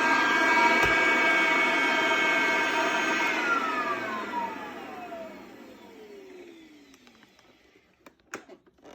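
Restored vintage Oreck XL 4000 vacuum cleaner running, then switched off about three seconds in, its motor whine falling steadily in pitch as it spins down and fades over about four seconds. A few faint clicks near the end.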